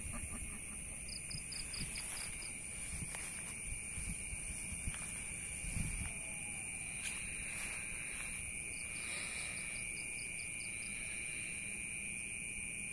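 Night insects such as crickets trilling in a steady, high, continuous chorus, with a pulsing chirp that joins twice. A few soft low thumps and rustles, the loudest about six seconds in.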